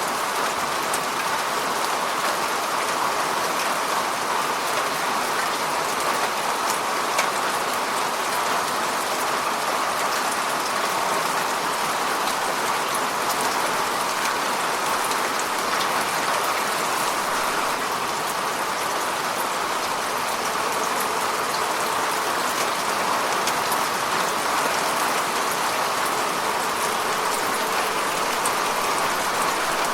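Steady rain falling, an even hiss with faint scattered drop ticks and no change in intensity.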